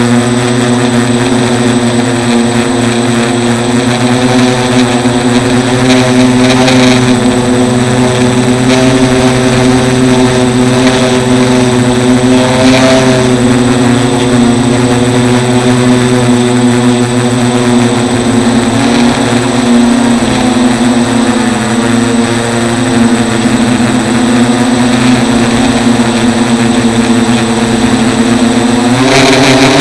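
Micro hexacopter's six small Turnigy 1811 brushless outrunner motors and propellers buzzing steadily in flight, heard up close from the camera mounted on the frame. The pitch wavers slightly and rises briefly near the end.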